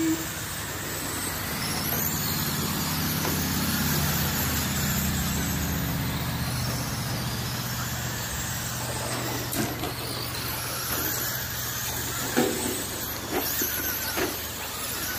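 Electric radio-controlled short-course trucks running laps on a dirt oval, their motors giving a high whine that rises and falls as they pass. There are a few short knocks in the second half.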